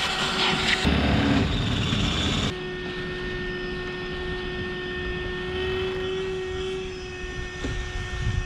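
Electric power tool motor running at a steady pitch, heard in several short clips cut together, with a loud low rumble about a second in.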